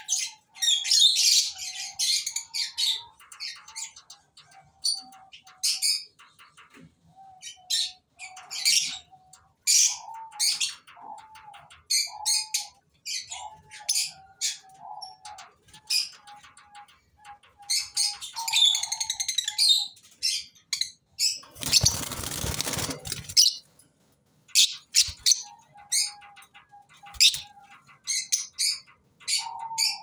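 Lovebirds chirping in many short, shrill calls. About three-quarters of the way through there is a rustling burst of under two seconds, fitting a flurry of wing flapping.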